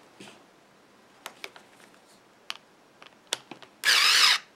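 Power screwdriver tightening the cord-clamp screws on a replacement plug: scattered small clicks as the bit is set into the screw and the plug is handled, then a short burst of the motor whining about four seconds in.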